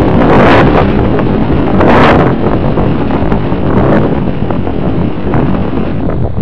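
Airflow buffeting the microphone of a camera mounted on a flying radio-controlled model airplane: a loud, steady rushing that eases slightly after about two seconds.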